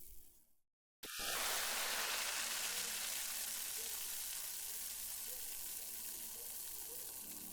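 Water foaming, a dense fizzing hiss of many tiny bubbles. It fades out and cuts to silence, then starts again abruptly about a second in and slowly dies down.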